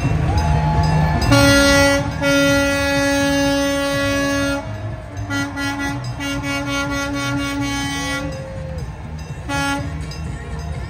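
A horn sounding on one steady pitch: a blast of about three seconds, a second of about three seconds, and a short one near the end, over music with a steady beat.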